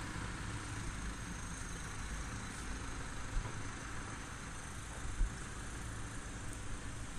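Steady low rumble with two brief low thumps, about three and five seconds in.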